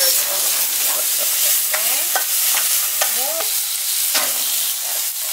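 Diced beef and pork sizzling in hot oil in a frying pan, with a wooden spatula stirring and scraping against the pan in short clicks over a steady frying hiss.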